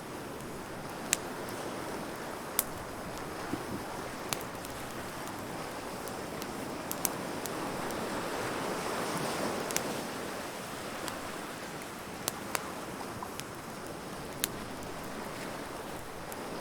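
Burning wood crackling, with sharp pops scattered irregularly throughout, over a steady wash of surf that swells and fades in the middle.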